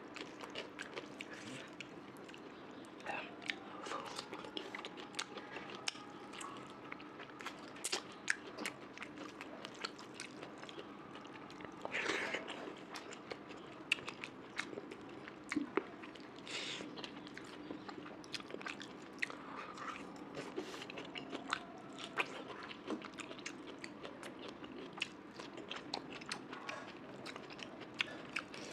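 A person chewing and eating spicy mutton curry and rice close to the microphone, with many short, wet mouth clicks throughout.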